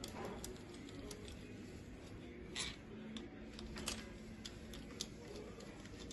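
Faint, irregular metallic clicks of a hand tool being worked on an engine's cylinder head, with sharper clicks about two and a half and four seconds in.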